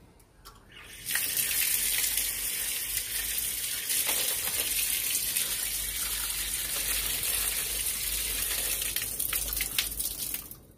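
Water gushing from an outdoor tap and splashing as feet are washed under it. It turns on about a second in and stops just before the end.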